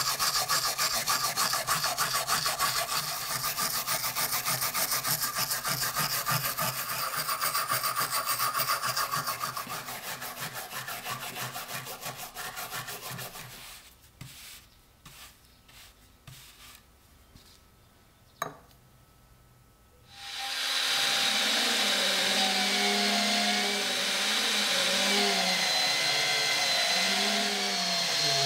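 Rapid rasping strokes of a hand tool scraping crusted rust off an excavated early-medieval iron axe head. About 13 seconds in, this gives way to quieter, scattered brushing and a single sharp click. About 20 seconds in, an electric drill starts up, spinning a wire brush inside the axe's eye with a steady whine that wavers slightly in pitch.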